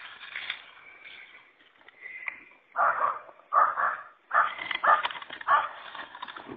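Young deer caught in a rope, giving a run of about six short distress calls in quick succession, starting about three seconds in.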